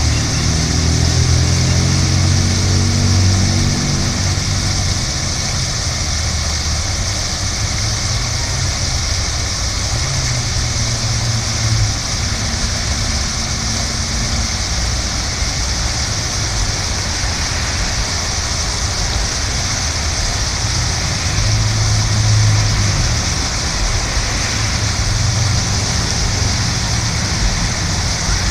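Water fountain's central jet and ring of arcing jets splashing steadily into the basin, a constant hiss of falling water. A low rumble runs underneath, strongest in the first few seconds.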